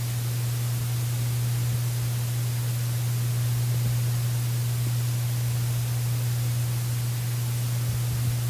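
Steady static hiss with a constant low hum underneath; no piano or violin is heard.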